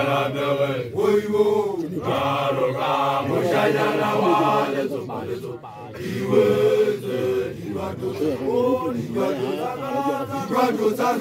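A group of young Basotho initiates chanting an initiation song together in unison, with a short break a little before the middle.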